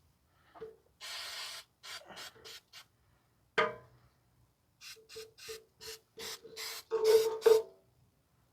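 Aerosol spray can sprayed in short hissing bursts: one longer burst about a second in, a few short ones after it, and a quick run of bursts in the second half, loudest near the end. A single sharp clink rings out about three and a half seconds in.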